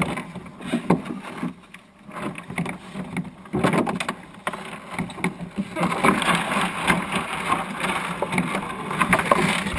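Irregular knocks, bumps and rattles of a small wooden sailing dinghy being handled and readied, with gear knocking against the hull. From about six seconds in, a denser rustling hiss joins them.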